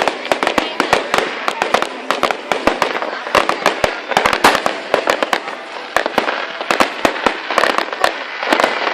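Aerial fireworks going off in a dense, irregular barrage of sharp bangs and crackles, many per second, picked up through a phone's microphone.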